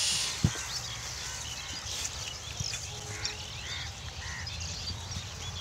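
Pigs rooting through plastic rubbish: scattered rustling and crinkling, with a sharp knock about half a second in. Small birds chirp over a low steady background rumble.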